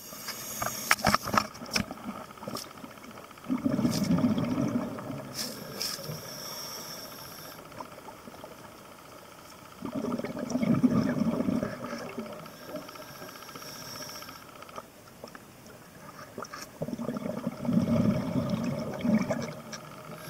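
Scuba diver breathing underwater through a regulator: exhaled bubbles gurgle out in three loud bursts about seven seconds apart, with a fainter high hiss between them on the inhales. A few sharp clicks come in the first two seconds.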